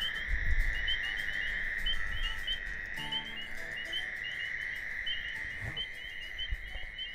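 Night chorus of calling frogs: a steady high-pitched trill with short chirps repeating several times a second over it.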